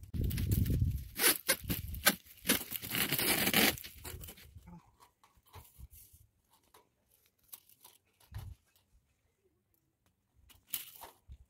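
Orange corrugated plastic electrical conduit being dragged and pulled by hand through a rebar cage, its ridges rasping against the steel and the hands. The rasping is loudest in the first four seconds, then thins to scattered light clicks and rustles, with one more short rasp near the end.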